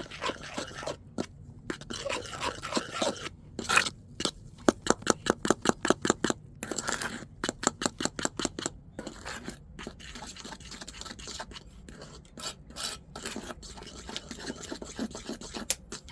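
Quick, rhythmic scraping strokes, about five a second, in runs broken by short pauses.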